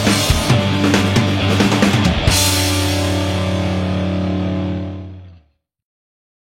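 Rock music in which drums and the band hit hard, then end on a final chord that rings out and fades away about five seconds in.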